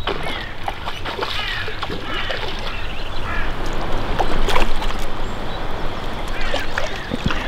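Birds chirping in short, falling notes over a steady rush of river water and wind.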